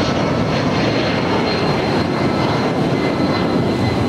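Boeing C-17 Globemaster III's four turbofan jet engines running steadily as the plane taxis out: a dense, even rumble with a thin, high, steady whine over it.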